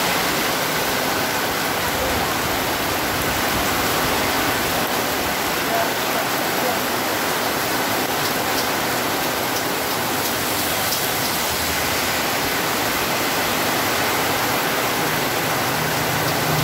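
Heavy rain pouring steadily onto a paved road, a dense, even hiss.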